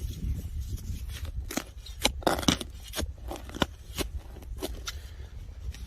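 A digging tool scraping and crunching into turf and soil, in a series of irregular short scrapes and cuts, over a low wind rumble on the microphone.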